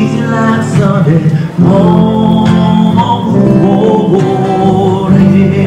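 Street busker singing a sustained, melodic song to acoustic guitar accompaniment.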